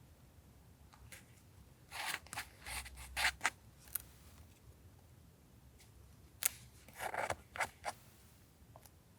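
Scissors cutting paper in a run of short snips about two seconds in, and again about six and a half seconds in.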